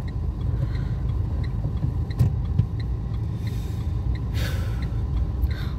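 Low rumble of a car heard from inside the closed cabin, with faint, evenly spaced ticking about three times a second and a single sharp click about two seconds in.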